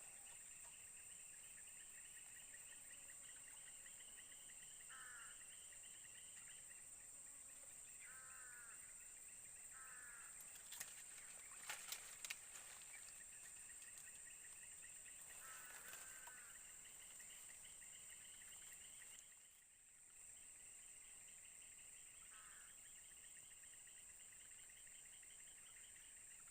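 Faint swamp insect chorus: a steady high-pitched drone with a pulsing trill beneath it, broken every few seconds by short chirping calls. A few sharp clicks come near the middle.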